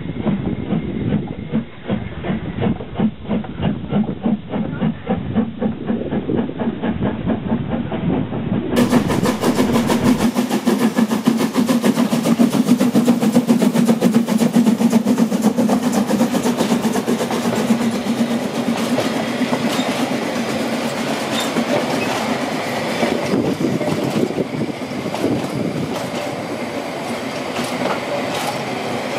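Harz narrow-gauge steam locomotive pulling away, its exhaust beating in a quick even rhythm and steam hissing around its cylinders. Near the end, passenger coaches roll past with their wheels clicking over the rail joints.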